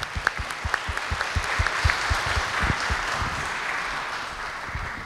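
A large audience applauding, many hands clapping together, the applause tapering off near the end.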